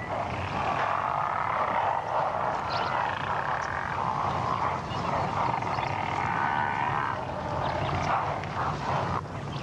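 Dense chorus of croaking frogs, continuous, over a low rumble.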